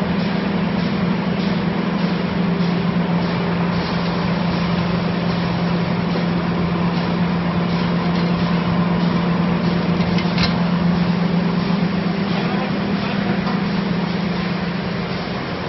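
CFJG-150 spiral paper tube winding machine running, with a strong steady low hum over a broad mechanical noise. A brief sharp click about ten and a half seconds in.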